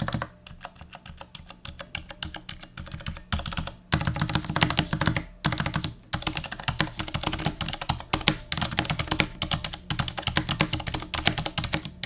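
Typing on a Durgod & HK Gaming Venus 60% mechanical keyboard with Cherry MX Silent Red switches: a rapid stream of keystrokes, lighter in the first few seconds and heavier from about four seconds in, with a few brief pauses.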